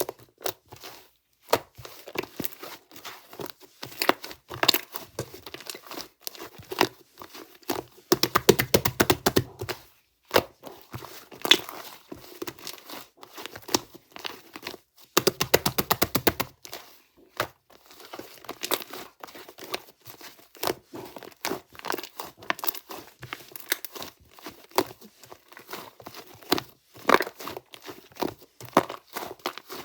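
Soft white clay slime being squished and pressed by hand, making a steady run of sticky clicks and small pops. Twice, at about eight and fifteen seconds in, it breaks into a second or two of fast crackling.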